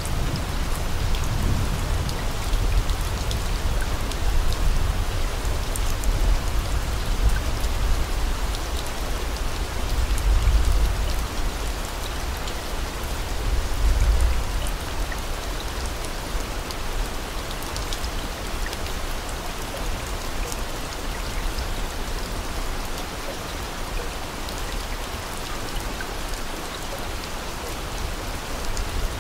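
Steady rain falling, with a low rumble that swells and fades several times in the first half.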